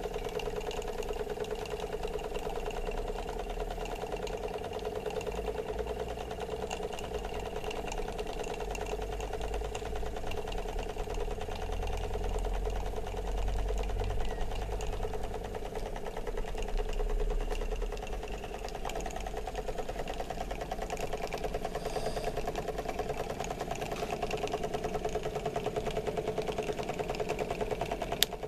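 Model live-steam engine running steadily at speed: a fast, even mechanical beat with a steady hum, a low rumble swelling in the middle and a sharp click near the end.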